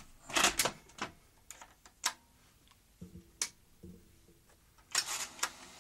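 Plastic clicks and clatter as a Philips VCR-format cassette is put into the top-loading cassette holder of a Philips N1700-type video recorder and the holder is pressed down. A few short clunks come about three to four seconds in, and a brief rustle comes near the end.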